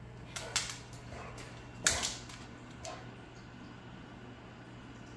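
Two dogs play-wrestling on a hardwood floor: a few sharp clicks and knocks from paws and bodies, the loudest, a thump, about two seconds in.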